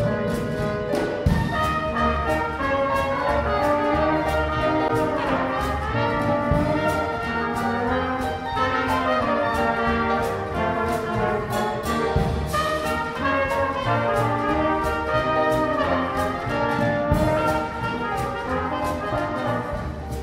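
Small traditional jazz band playing: trumpet, trombone and clarinet in ensemble over piano, string bass and drums, with a steady beat.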